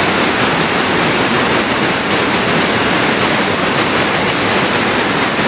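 A river in flood, swollen by heavy rain, with fast brown water rushing past in a loud, steady rush.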